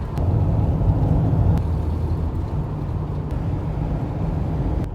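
Road noise inside a moving vehicle: a steady low rumble of engine and tyres, a little louder in the first second and a half.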